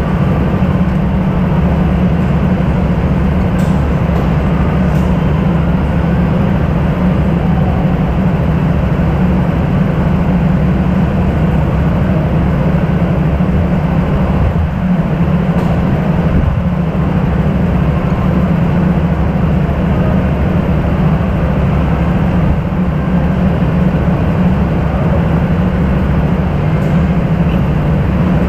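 Go-kart engine running steadily in a strong low hum, with a constant rushing noise over it.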